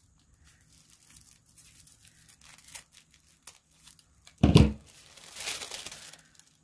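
Thin tissue paper crinkling as it is pulled open by hand, with one loud rip about four and a half seconds in, then a second of rustling as the paper comes away.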